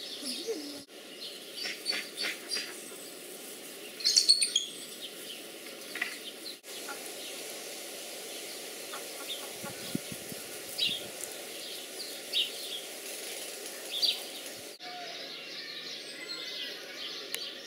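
Ducklings peeping: short high chirps scattered throughout, with a louder cluster about four seconds in, over steady background noise.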